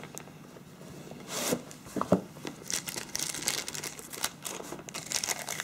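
Thin clear plastic wrapping crinkling and rustling as a phone is handled and pulled out of its plastic bag, in irregular bursts that grow denser in the second half, with a couple of light clicks about two seconds in.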